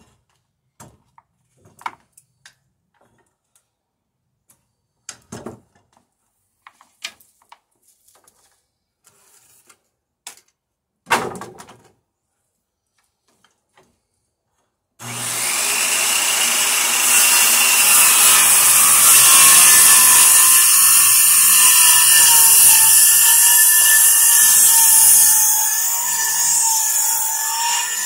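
Scattered light knocks and clicks as the saw and board are handled. About halfway through, a corded circular saw starts suddenly and runs loud and steady with a wavering whine, cutting along a wooden plank.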